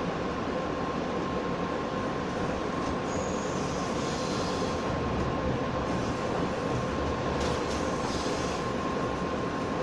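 JR West 117 series electric train running along the track, heard from on board: a steady rumble of wheels on rail, with faint high wheel squeal that comes in about three seconds in and again near the end, as on curves.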